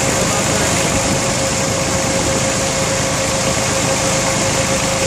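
Bobcat S70 skid steer's small three-cylinder Kubota diesel idling steadily, with a thin steady whine over the engine note.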